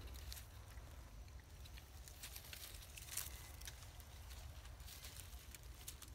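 Faint rustling and crackling of dry leaf litter, heard as scattered light clicks over a low, steady rumble of wind on the microphone.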